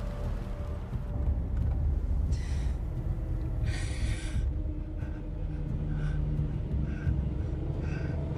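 Low rumble of a car driving, heard inside the cabin, with a woman's heavy, gasping breaths. Two long breaths come a couple of seconds in, followed by shorter, quicker ones.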